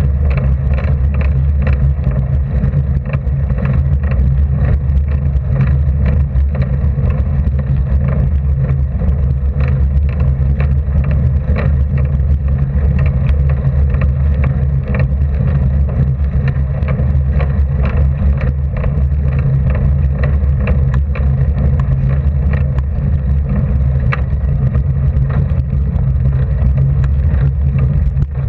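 Steady low rumble of a road bicycle climbing slowly on rough tarmac, picked up through a bike-mounted camera, with light clicks and rattles throughout.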